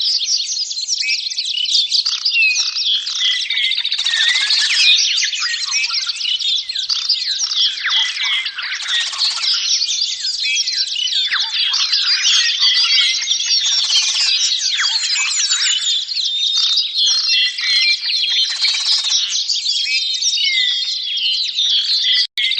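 A crowd of small parrots (lovebirds, budgerigars and parakeets) chattering and chirping at once, many short, high calls overlapping without a break.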